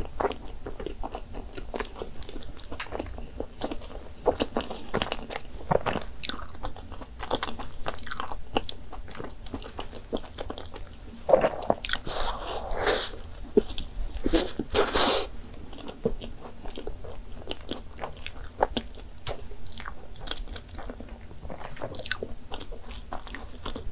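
Close-miked eating of a cream-filled doughnut: bites and wet chewing with many small mouth clicks, and a few louder, longer bursts about halfway through.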